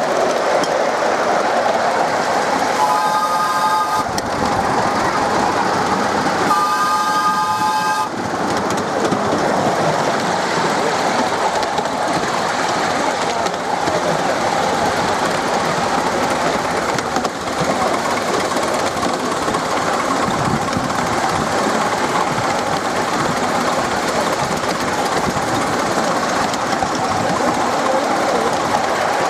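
Miniature railway train running on a raised track, heard from a passenger car, with steady running noise from the wheels and track. The locomotive's whistle sounds twice, each blast about a second long, about three seconds in and again about seven seconds in.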